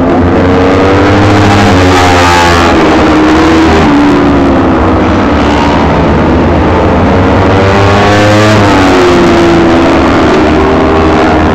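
Several four-stroke Kawasaki Ninja 250 race motorcycles revving hard through the gears as they lap the circuit, their engine notes repeatedly rising and falling and overlapping one another.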